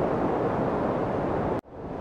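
Steady white-noise rush, even and unvarying, that cuts out abruptly about one and a half seconds in and fades back up over the next half second or so.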